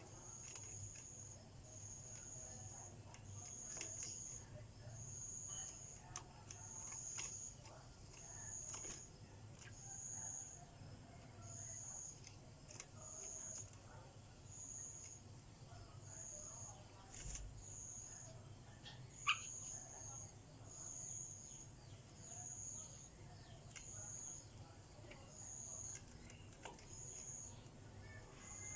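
Quiet background with a thin high-pitched chirp repeating about once a second, like an insect, and scattered faint clicks. A single short call from the yellow-vented bulbul comes about two-thirds of the way in and is the loudest sound.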